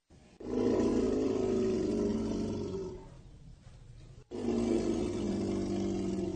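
Elephant giving two low rumbling calls, each about two and a half seconds long, the second starting about four seconds in.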